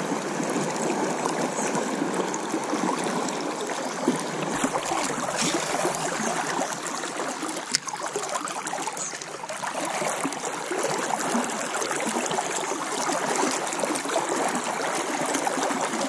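A river current flowing fast over shallow riffles just below the microphone: a steady wash of water noise, with one brief click about halfway through.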